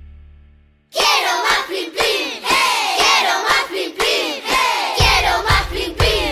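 Children's music: a held note fades out, then after a brief break a lively children's song with singing starts, a steady beat of about two low thumps a second joining near the end.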